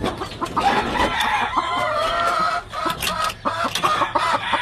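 Several gamefowl roosters crowing over one another, with clucking mixed in; the calls are densest in the first half and ease briefly about halfway through.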